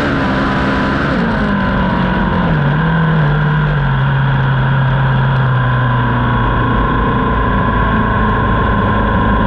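A speedcar's engine running loud and continuous on board, over a rush of noise. The engine note falls over the first few seconds, holds low for a few seconds, then rises again in the second half.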